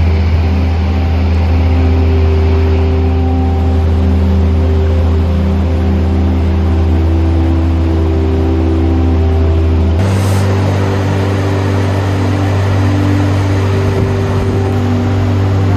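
A vehicle running with a steady low drone and a constant rushing noise; the low tone shifts abruptly about ten seconds in.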